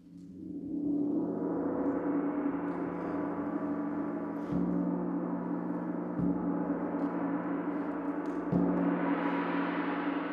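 Large suspended gong (dora) struck with a padded mallet: its ring swells up from silence over the first second and carries on steadily, renewed by further strokes about four and a half, six and eight and a half seconds in.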